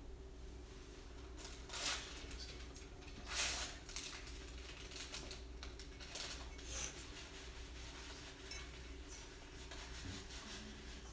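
Paintbrush rubbing over an owl piggy bank, soft scratchy strokes with a few louder swishes, the loudest about three and a half seconds in. A steady low hum lies under it.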